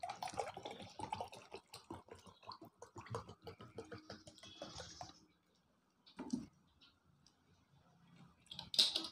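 Water poured from a plastic bottle into a drinking glass, splashing and trickling for about five seconds. A single thump follows about six seconds in, and a short sharp noise near the end.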